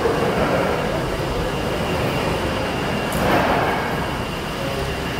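Victorian steam beam engine at Ryhope pumping station working under steam: a steady mechanical running noise from its moving rods and valve gear, with a louder swell about three seconds in.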